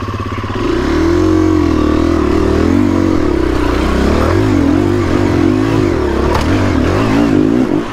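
KTM enduro dirt bike engine revving hard under load while it climbs a steep rock ledge. The revs rise and fall again and again as the throttle is worked, and the engine drops off near the end.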